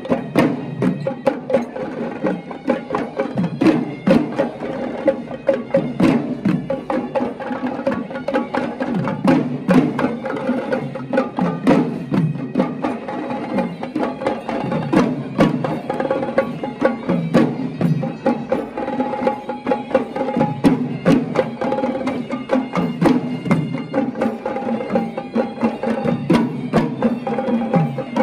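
Traditional Sri Lankan procession drumming: many rapid, sharp drum strokes over a sustained melodic line.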